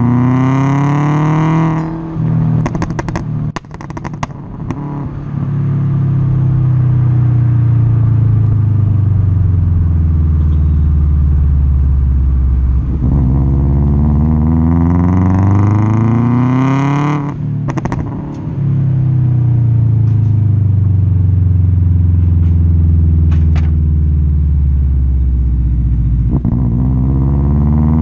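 Remapped 2004 Subaru Impreza WRX heard at the tailpipe. Its turbocharged flat-four revs up, and each time the throttle is lifted the exhaust pops and crackles in a quick run of sharp bangs: about two seconds in and again around seventeen seconds, with a few single pops later. The pops are the overrun 'popcorn' that the remap was set up to give.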